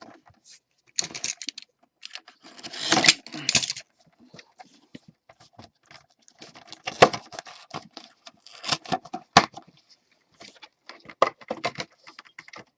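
Packaging being opened by hand: irregular rustling and crinkling with sharp clicks and scrapes, loudest in two bursts about three and seven seconds in.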